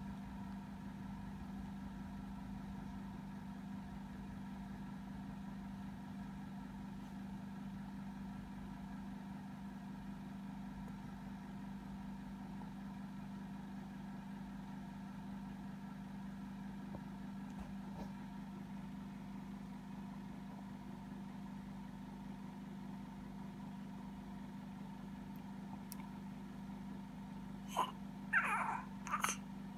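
Steady low electrical-sounding hum. Near the end comes a short run of high, squeaky vocal sounds that bend in pitch: a yawn.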